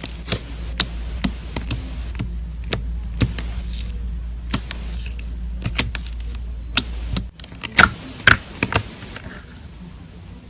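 Slime being squeezed and poked, giving irregular sharp clicking pops, about one or two a second.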